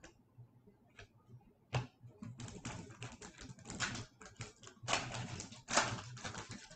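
Hockey-card pack wrapper being torn open and crinkled by hand: a couple of light clicks and a sharp tick, then rapid crackling and crinkling for about four seconds.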